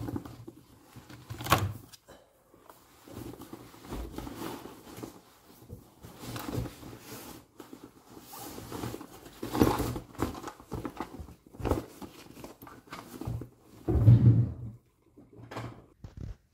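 Rustling and knocking as things are handled and packed into a fabric backpack, with several louder thumps, the loudest about fourteen seconds in.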